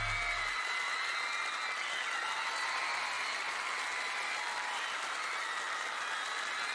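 Audience applauding and cheering, with many high-pitched voices screaming over the clapping.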